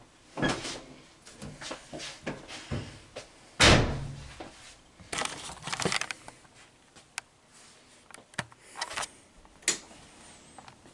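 Laundry-machine door and lid knocks and clatters, with one heavy thud about three and a half seconds in and a quick run of clicks and knocks a couple of seconds later. Then scattered knocks and rubbing as the camera is picked up and handled.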